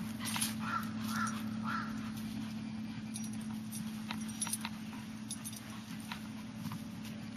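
Dogs digging and scuffling in dry leaves and soil: scattered scratchy clicks with some jingling of collar tags. Three short distant calls sound about a second in.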